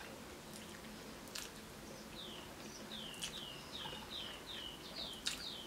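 A bird calling in the background: a quick run of short falling chirps, about three a second, starting about two seconds in, with a few faint clicks from eating.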